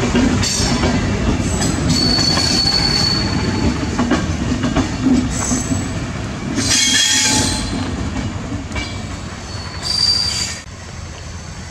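LHB passenger coaches rolling past at close range, their wheels clattering on the rails, with brief high-pitched wheel squeals. The last coach passes and the noise drops away sharply near the end.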